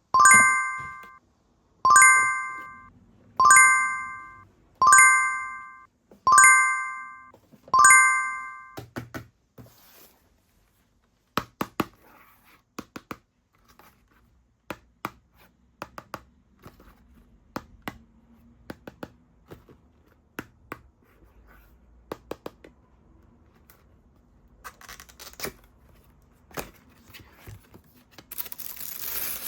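Six identical bright chime strikes, about one every one and a half seconds, each ringing away over about a second. Then come scattered clicks and taps of a product box and its packaging being handled and opened, with plastic wrapping crinkling near the end.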